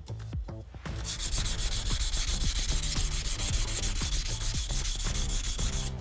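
A VG10 steel nakiri knife being stroked back and forth on a whetstone, a steady rapid scraping grind that starts about a second in and stops just before the end.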